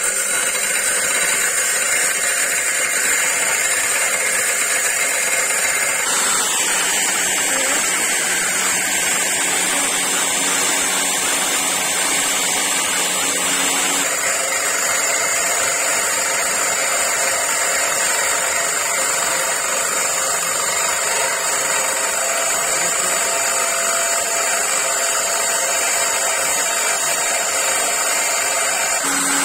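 Interskol angle grinder with a cutting disc running at full speed and cutting steel, a steady high whine. The sound changes character about six seconds in and again about fourteen seconds in.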